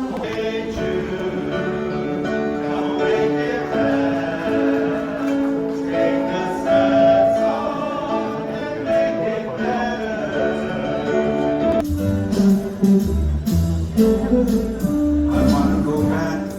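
Group singing with plucked-string accompaniment, a Hawaiian-style song played on Hawaiian instruments. About twelve seconds in it cuts abruptly to different music with a heavy bass beat.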